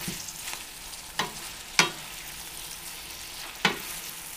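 Spinach and artichoke hearts sizzling in butter in a stainless steel skillet as they are stirred with a wooden spoon. Three sharp knocks of the spoon against the pan, the loudest a little under two seconds in.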